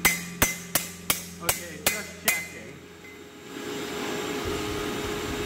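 Hammer blows on a steel lawnmower blade laid on an anvil: about seven ringing strikes in quick succession, a little under three a second, as the blade is straightened. The hammering stops after about two and a half seconds, and a steady rushing noise comes up about a second later.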